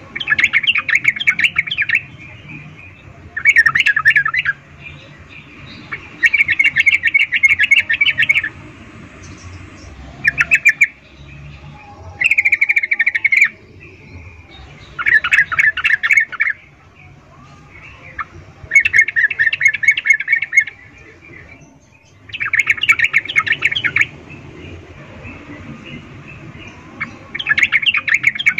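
Yellow-vented bulbul (trucukan) giving repeated bursts of rapid, chattering calls, about nine bursts each one to two seconds long with short pauses between. This is the female's 'ngecuplik' breeding call to a male.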